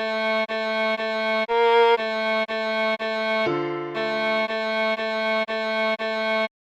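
Viola playing a simple melody: short, evenly spaced notes about two a second, mostly repeating one pitch. A higher note comes in about a second and a half in and a lower one about halfway through. The notes stop shortly before the end.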